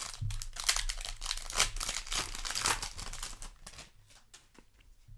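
Crinkling of a foil booster-pack wrapper and rustling of trading cards being handled, busy for about three seconds, then quieter with a few light clicks.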